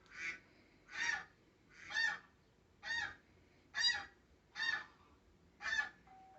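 Goose-like honks, seven in all, about one a second. Each honk is short and nasal. Near the end a faint steady tone begins.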